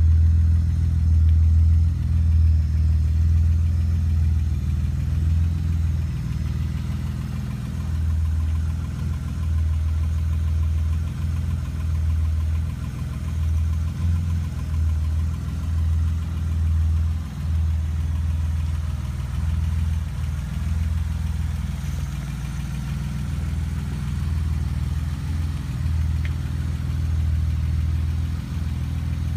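1979 BMW 635CSi's straight-six engine idling steadily.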